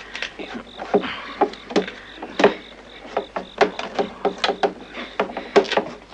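Irregular series of sharp knocks and clatters, two or three a second, over the faint hum and hiss of an old film soundtrack.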